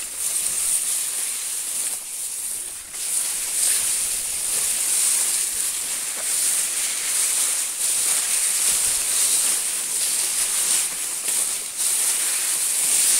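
A steady high-pitched hiss with rough rustling of grass and brush as someone moves through tall vegetation; the hiss briefly dips twice.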